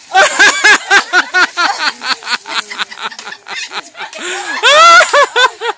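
A woman laughing and shrieking in quick, breathless bursts from the shock of ice water just dumped over her, with a louder, higher shriek near the end.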